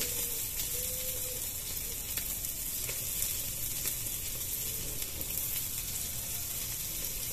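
Marinated chicken legs (chicken inasal) sizzling over a charcoal grill as they are turned with tongs, a steady hiss.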